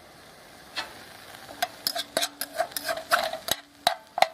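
A spoon stirring and scraping crushed ginger, turmeric and jaggery cooking in mustard oil in a pan over a low flame. There is a single clink a little under a second in, then a quick, uneven run of clinks and scrapes from about a second and a half in.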